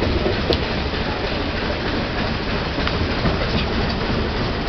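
Railway carriage running along the track: a steady rumble of wheels and running gear with a few faint clicks.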